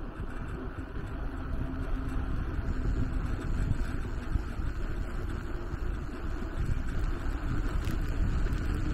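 Wind rushing over the microphone and steady tyre rumble from an electric bicycle riding on asphalt, slowly getting a little louder.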